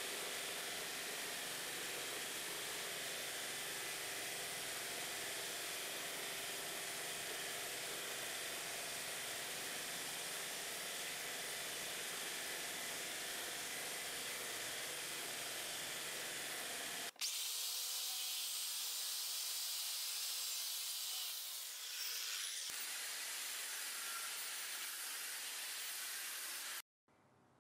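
Belt grinder sanding a wooden knife handle on its small contact wheel: a steady grinding hiss. About seventeen seconds in it gives way to an abrasive cut-off wheel cutting steel, a thinner, higher hiss that stops abruptly near the end.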